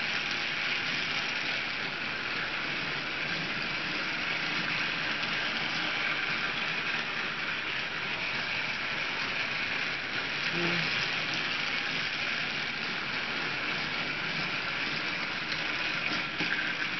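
Battery-powered TrackMaster Rebecca toy engine running around plastic track, pulling a line of small freight cars: a steady, high whirr of its small electric motor and gears with the wheels running on the track.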